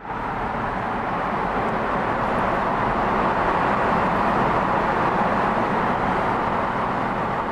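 Steady road and tyre noise of a car driving through a road tunnel, heard from inside the cabin.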